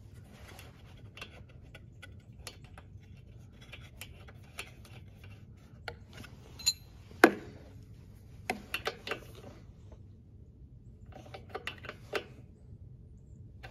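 Scattered small metallic clicks and taps of hands refitting a lawn mower carburetor's float bowl and bowl-drain nut, with one sharper click about halfway through and small clusters of lighter clicks after it.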